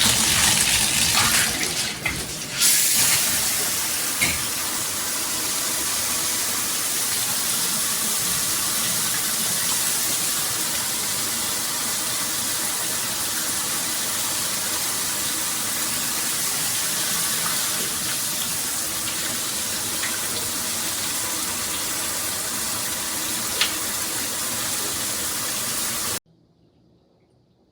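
Water spraying from a handheld shower head running at full flow, a steady hiss that is a little louder for the first couple of seconds and stops abruptly near the end.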